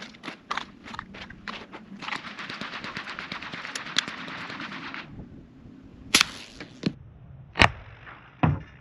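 Suppressed 300 Blackout single-shot pistol shooting bowling pins: several sharp cracks from about six seconds in, the shot and the bullet knocking the pin. Before them, scattered light clicks and knocks.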